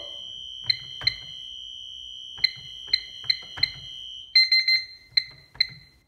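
Interlogix NetworX security keypad beeping as its keys are pressed to clear a siren overcurrent fault: single short beeps a few times, then a quick run of beeps about four and a half seconds in. A steady high electronic tone sounds with them and stops about four seconds in.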